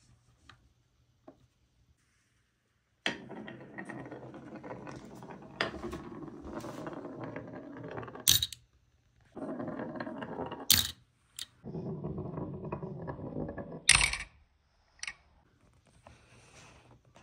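A glass marble rolling down the grooves of a wooden HABA marble-run slope. It makes three stretches of even rolling rumble, broken by sharp clacks as it drops from one level to the next. The loudest clack comes about fourteen seconds in, as the marble lands in the bed of a die-cast toy pickup truck.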